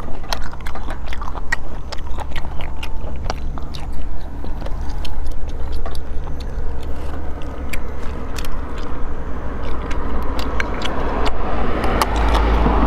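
Close-miked sucking and chewing as spicy snails are eaten from their shells, with many small wet clicks and smacks. A steady low rumble runs underneath and swells near the end.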